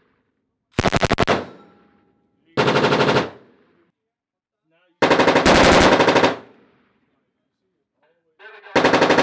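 Belt-fed machine gun firing on full auto in four bursts of rapid shots, each followed by an echo down the range. The third burst, about five seconds in, is the longest.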